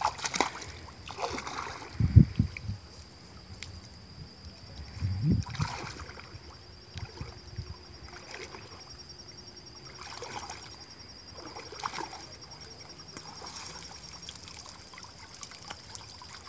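Water sloshing and splashing as a person wades through a shallow, muddy pond and pushes a hand sieve through the water. The louder splashes fall in the first six seconds, the loudest about two seconds in; after that only softer sloshes and trickling.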